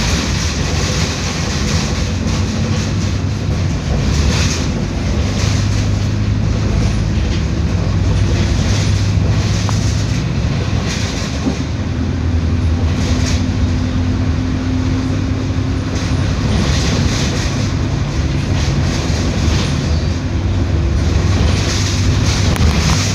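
Mercedes-Benz OF 1721L BlueTec 6 bus running along, its engine a steady low drone whose note shifts a few times, over road noise and frequent rattles.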